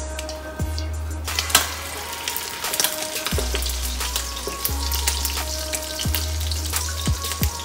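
Egg-washed, flour-dredged chicken breast laid into hot olive oil in a stainless steel skillet. The oil starts sizzling and crackling about a second in and keeps on, a dense hiss full of small pops.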